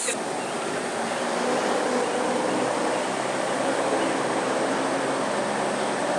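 Tour vehicle's engine running steadily: an even drone with a faint low hum.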